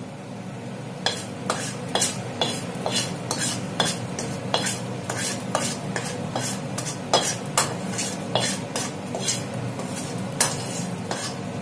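Wooden spatula scraping and knocking against a tilted non-stick kadai, about two strokes a second, as fried vermicelli is pushed out onto a steel plate. A steady low hum runs underneath.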